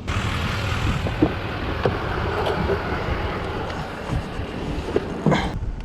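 Boat running on the water: steady drone of the Honda 350 V8 outboard under a continuous rush of wind and water.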